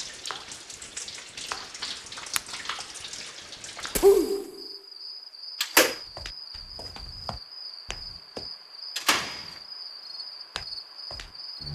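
Water running and splashing in a tiled room for about four seconds. Then a cricket's steady high trill, with scattered sharp knocks over it.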